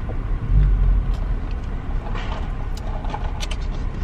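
Car moving, heard from inside the cabin: a steady low road and engine rumble that swells about half a second in, with a few faint rustles and clicks.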